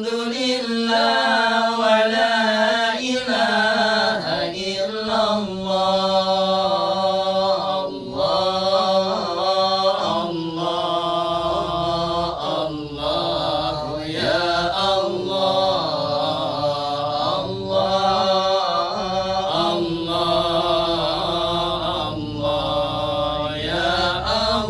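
Men chanting a sholawat, an Arabic devotional song in praise of the Prophet, in long drawn-out melodic lines that slide up and down in pitch without a break.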